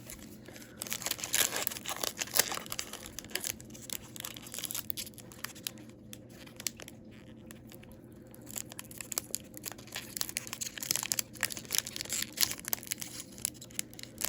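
Foil wrapper of a hockey card pack being torn open by hand, crinkling and tearing in two spells with a short pause between.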